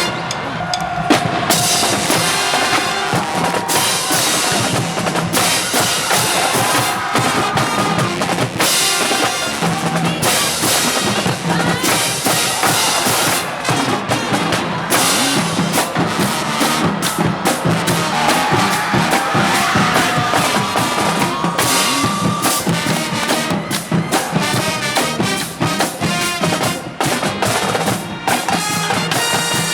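High school band playing an up-tempo number, with a drum kit's snare and bass drum driving a steady beat under the melody.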